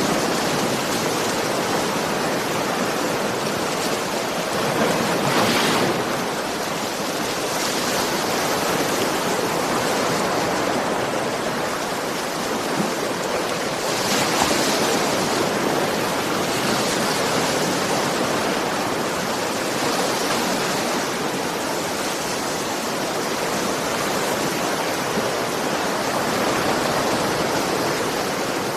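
Ocean surf washing on a shore: a continuous rush of water that swells and eases every few seconds as waves break.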